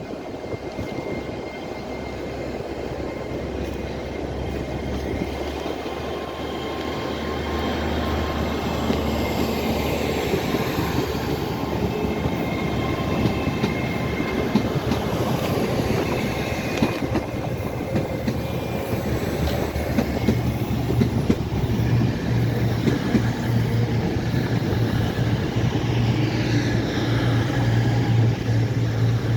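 A train running through the station on the rails, with a steady low engine hum that grows louder, strongest in the last third.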